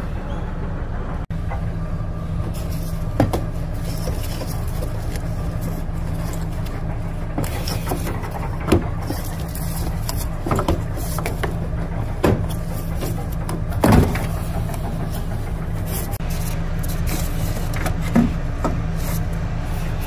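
Scattered knocks and clicks from hands and tools working coolant hoses off a Toyota Prius electric coolant pump, over a steady low rumble.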